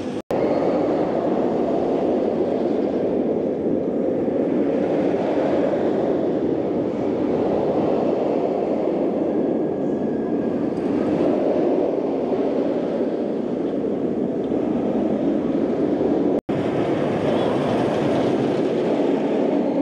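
Afterburn, a B&M inverted steel roller coaster: a train running along the track overhead, a steady rumbling noise that barely varies.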